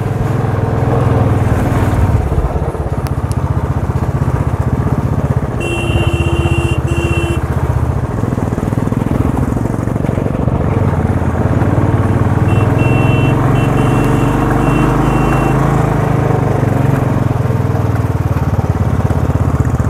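Royal Enfield motorcycle engine running steadily under load, pulling up a steep, rough dirt track, with tyre and road noise. A high tone sounds once for about a second and a half about six seconds in, then as a run of short beeps past the middle.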